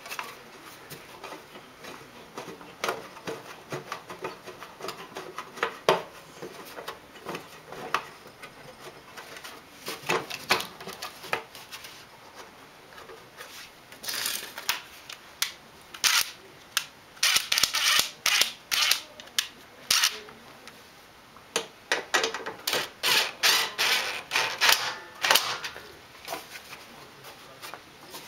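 Hand tools clicking and knocking on the snowblower as a fastener is tightened: scattered clicks at first, then several bursts of rapid clicking in the second half.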